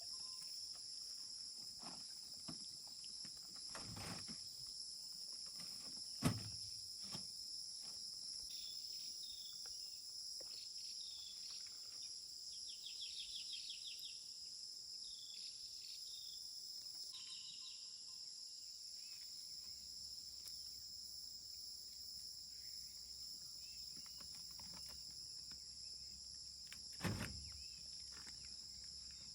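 A steady high-pitched chorus of insects, with a bird chirping now and then in the middle and a few sharp knocks, the loudest about six seconds in and another near the end.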